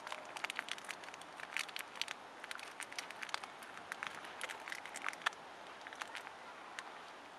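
Pot of water with noodles heating on a Primus Duo gas camping stove, crackling and ticking irregularly as it comes back to the boil, over a steady hiss.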